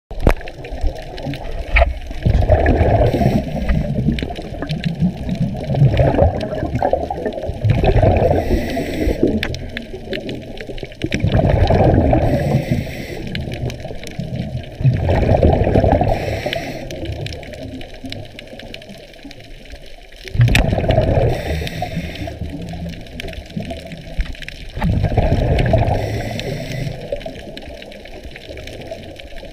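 Scuba diver breathing underwater through a regulator, heard through a GoPro's underwater housing: a gurgling rush of exhaled bubbles every few seconds, with quieter watery noise in between.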